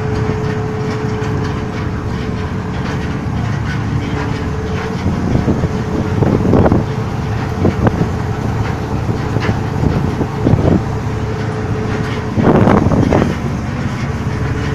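A crab boat's engine and rope hauler running steadily as the line is wound in, with several short, louder bursts of noise over the steady hum in the second half.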